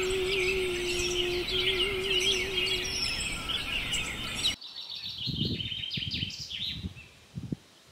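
Woodland birds chirping and singing. A woman's voice holds one long, slightly wavering note that ends about three seconds in. After a sudden cut about four and a half seconds in, the birdsong is fainter and irregular low, muffled thuds come in.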